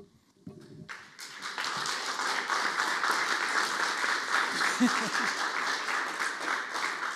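Audience applauding, starting about a second in and keeping up a steady clapping to the end, with a few faint voices among it.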